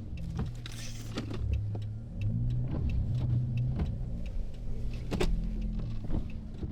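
Car engine running as a low, steady hum, with scattered light clicks and knocks over it.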